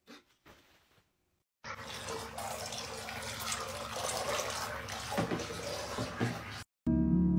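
Water splashing in a bathtub, a steady noisy wash that starts a second and a half in and cuts off suddenly near the end. Guitar music starts right after.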